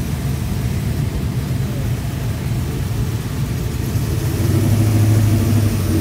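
Car engine running with a low rumble; a steady low engine note grows louder about four seconds in and drops away near the end.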